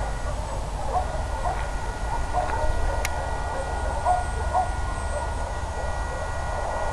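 Many short animal calls repeating over a steady low rumble, with faint steady high tones and one sharp click about three seconds in.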